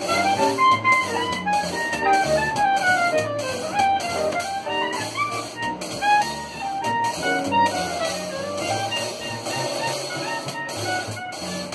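Small live jazz band playing: saxophone and trumpet lines running up and down over upright bass, drums and keyboard.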